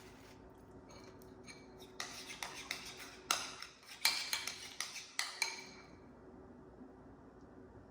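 Kitchenware clinking and clattering: a quick run of knocks and ringing clinks of utensils against dishes, starting about two seconds in and ending about five and a half seconds in. A faint steady hum sits under it.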